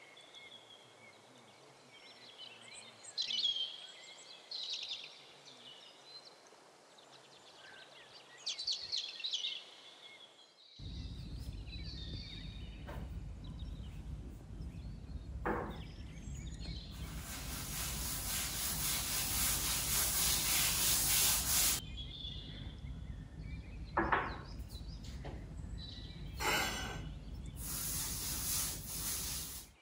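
Faint bird chirps at first. After about ten seconds comes a low steady background with a few sharp knocks, then a pad scrubbing oil into a bare oak tabletop: a long stretch of about five seconds and another near the end.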